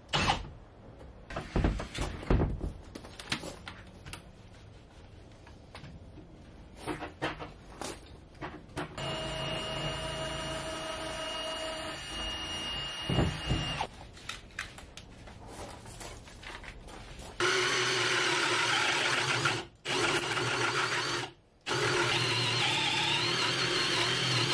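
Scattered knocks and clicks of hand work, then a small power tool running at a steady pitch for about five seconds. In the last seven seconds a cordless drill bores into the wooden transom knee, loud and steady with its pitch wavering under load, stopping briefly twice.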